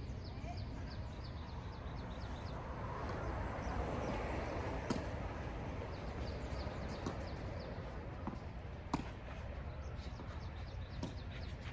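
A few sharp pops of a tennis ball struck by rackets and bouncing on the court, the clearest about five and nine seconds in, over a steady low outdoor rumble, with faint bird chirps near the start.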